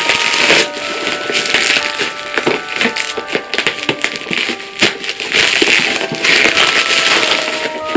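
Crinkling and rustling of a figure's plastic and cardboard packaging being handled and opened, with many small clicks, over light background music of held notes.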